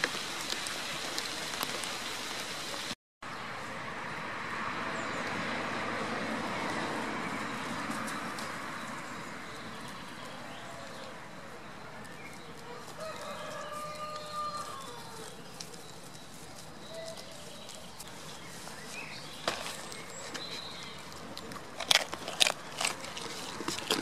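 A rooster crowing a couple of times through a steady hiss of light rain, with a few sharp knocks near the end.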